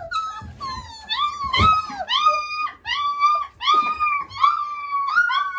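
A three-week-old Mioritic shepherd puppy crying: a quick run of high-pitched whining cries, about two a second, many dropping in pitch at the end.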